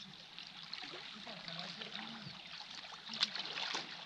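Small waves lapping and trickling among the shoreline boulders, with a faint low hum underneath and a brief sharp crack about three seconds in.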